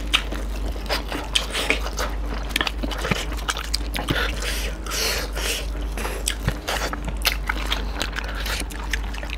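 Close-up eating sounds of two people biting and chewing beef curry with bamboo shoot and rice, eaten by hand: many irregular short wet clicks and smacks over a steady low hum.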